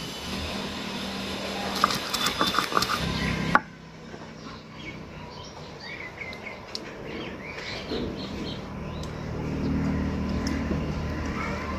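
Stone roller of a sil-batta grinding chopped onion on the stone slab: a low rolling rumble with scraping clicks, cut off abruptly about three and a half seconds in. After that, birds chirp, and a low rumble returns near the end.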